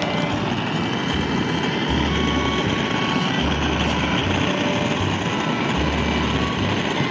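Handheld gas torch burning with a steady rush, its flame played directly on the food to sear it.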